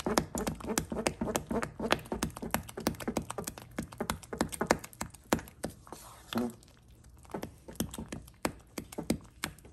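A spoon beating thick cornmeal in a pot: rapid, irregular knocks and slaps against the pot and the stiff mash, several a second, thinning out after about six seconds. The cornmeal is being beaten as it cooks, to keep it smooth.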